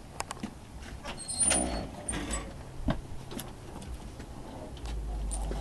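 Footsteps and a front door being opened and passed through: scattered clicks and knocks of the latch and door, with a brief squeak about a second and a half in. A low rumble of camera handling comes in near the end.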